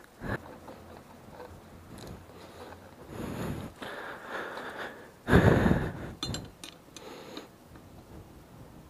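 A motorcycle rear wheel is handled on concrete: the rubber tyre scuffs and shifts. The loudest sound is a heavier thump about five seconds in, followed by a few small metallic clicks.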